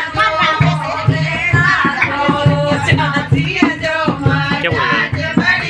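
Music with singing over a steady drum beat.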